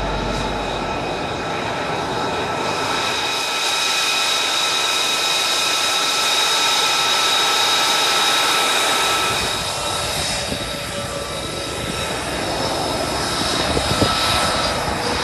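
F-35 fighter's single Pratt & Whitney F135 jet engine running on the ground, a steady rushing noise with a high whine. The sound shifts about ten seconds in, and there is a brief sharp knock near the end.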